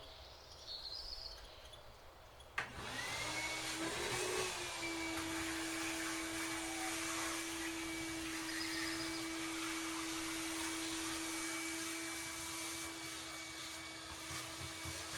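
An electric blower motor of the vacuum kind switches on with a click a few seconds in, spins up with a rising whine, then runs at a steady pitch with a wide rushing hiss.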